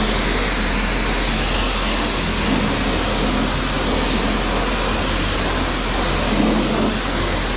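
High-pressure car-wash spray wand blasting water onto a soapy car wheel and tyre: a steady, loud hiss of the jet.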